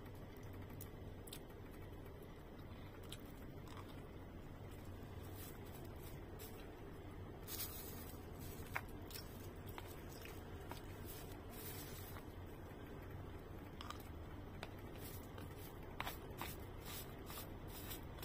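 Eating sounds: a plastic spoon clicking and scraping against a plate, with chewing, over a steady low hum. The clicks come more often in the last few seconds.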